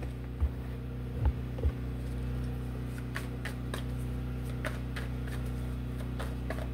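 Steady low hum running throughout, with a few soft low thumps in the first two seconds and scattered faint clicks after that.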